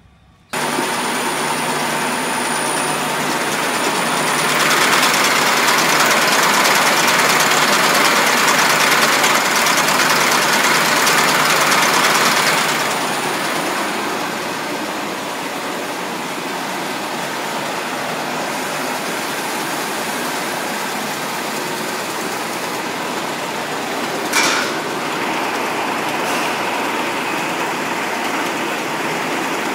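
Tomato sorting and packing line running: steady machine noise of conveyors and rollers with a low hum, louder for several seconds early in the stretch, and a single sharp click about two-thirds of the way through.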